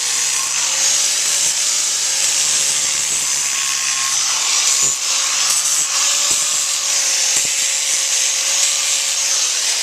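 Electric power grinder running steadily with a slightly wavering whine, its abrasive disc grinding down a horse's hoof wall at the quarters with a continuous gritty hiss.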